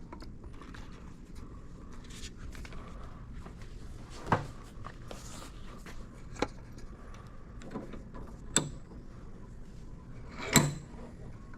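Four or five short, sharp clicks and knocks of parts or tools being handled, the loudest about ten and a half seconds in, over a steady low background hum. No whistle is blowing.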